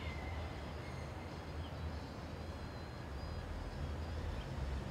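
Wind rumbling on the microphone over steady outdoor background noise, with a few faint short high chirps.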